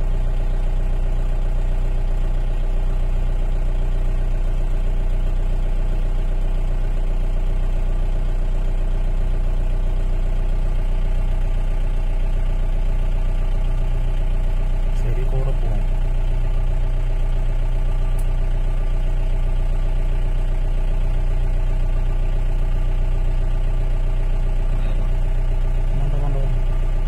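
A vehicle's engine idling steadily with a low hum, heard from inside the cabin.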